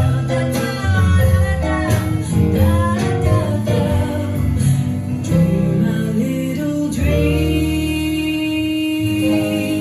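A song with a singing voice over guitar, played back through a McIntosh MA12000 amplifier and Wharfedale Elysian 4 speakers; the singer holds one long note near the end.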